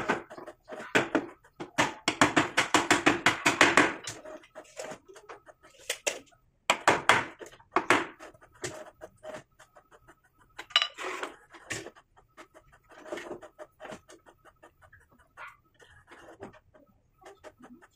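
Hammer striking a wooden frame joint: a fast run of light blows about two seconds in, then a few shorter runs of strikes.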